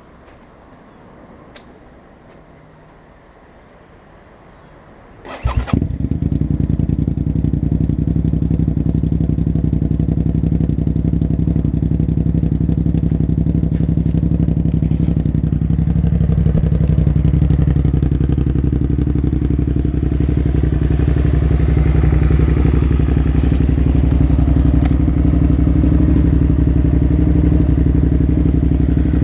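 Suzuki SV650 K5's 645 cc V-twin with a Delkevic stubby slip-on exhaust starting up about five seconds in, then idling steadily, a little louder from about two-thirds of the way through.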